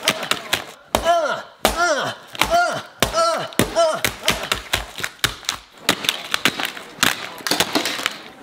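Repeated punches landing on a plastic wall clock on a couch cushion. For the first few seconds each blow is a knock followed by a short cry that rises then falls in pitch, about two a second. In the second half the blows come in a faster flurry of knocks.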